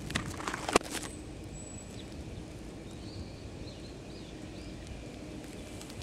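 Outdoor ambience: a steady low rumble, with a cluster of sharp clicks in the first second and a few faint bird chirps around the middle.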